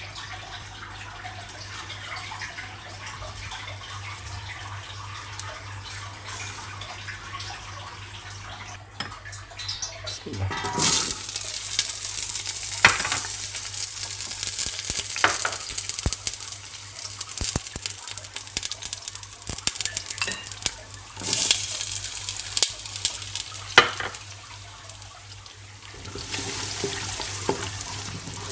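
Food frying in a pan while a spatula stirs and knocks against it. The sizzle gets louder from about ten seconds in, with several sharp knocks of the spatula on the pan.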